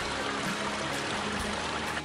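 Small forest creek running and trickling over rocks.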